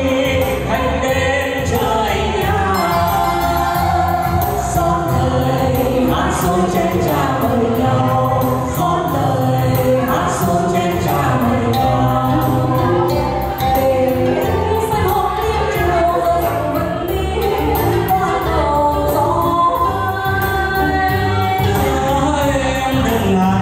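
Music with singing: voices over instrumental backing.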